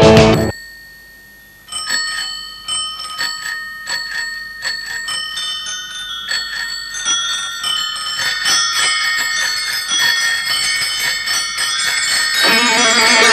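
Many bicycle bells ringing one after another, sparse at first and then thicker and overlapping, as the bell interlude of a rock song. It follows a brief drop-out in the music, and the band with electric guitar comes back in near the end.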